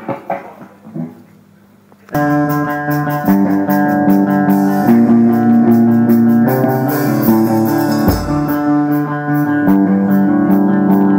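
Live rock band playing an instrumental passage: amplified electric guitars holding chords over bass guitar. It comes in suddenly about two seconds in, after a short quieter stretch with a few knocks.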